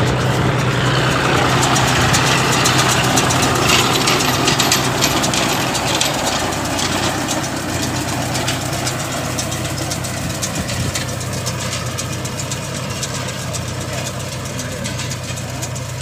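John Deere 5045D tractor's three-cylinder diesel engine running steadily under load as it pulls a Green System RB0311 round baler, with a dense mechanical rattle from the working baler. The sound fades gradually as the tractor and baler move away.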